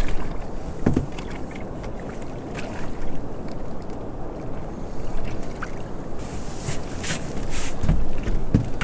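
Water sloshing against a small open boat's hull, with wind on the microphone. A knock about a second in, and a cluster of sharp clicks and knocks near the end as the fish is handled aboard.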